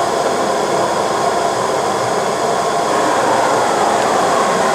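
Steady hum and whine of running machinery: an even hiss with several steady whining tones over it, holding level throughout.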